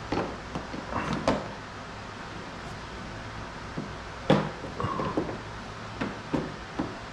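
Door handle parts being worked into place inside an Infiniti G37 coupe's door: a run of scattered clicks and knocks of plastic and metal. The loudest knock comes a little past halfway, followed by a brief squeak.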